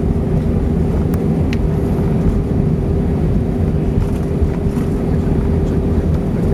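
Cabin noise inside an Airbus A320 moving on the ground after landing: a steady low engine rumble with a steady mid-pitched hum running through it, and a couple of faint clicks.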